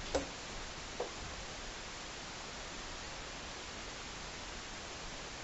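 Steady background hiss of the recording, with two faint short sounds near the start, about a second apart.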